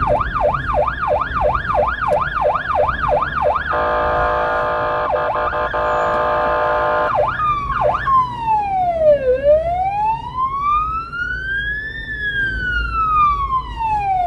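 Electronic emergency siren on a blood-transport car, switched back on: a fast yelp for the first few seconds, then a steady horn tone for about three seconds, then a slow wail that falls, rises and falls again before cutting off at the end. A low road and engine rumble runs underneath.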